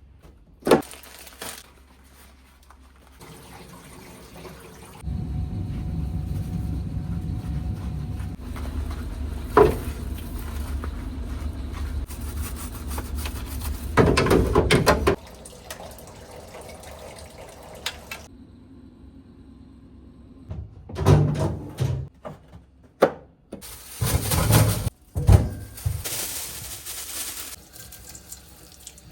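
Water running and splashing at a kitchen sink, with a few sharp knocks from things being handled.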